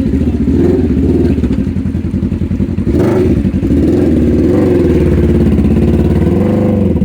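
Side-by-side UTV engine running under load, its pitch rising and falling several times as the throttle is worked over rough trail.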